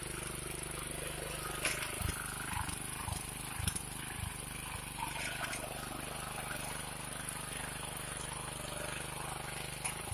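Honda FJ500 power tiller's single-cylinder engine running steadily under load while its tines churn soil. There are a few short low thumps about two to four seconds in and again near the end.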